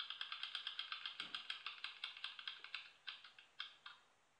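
Ticking of an online spinning name-picker wheel played on a computer. The ticks come rapidly at first, then slow and space out as the wheel comes to rest, with the last few spread apart before stopping about four seconds in.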